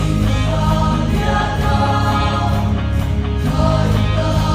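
Mixed choir of men and women singing, holding long chords that move to new notes a few times.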